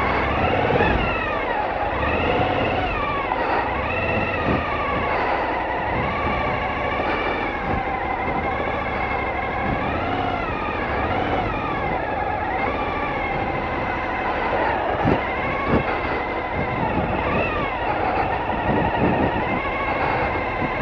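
Suzuki V-Strom 1000's V-twin engine running at low speed, its pitch rising and falling every second or two as the throttle is worked through tight steering-lock circles.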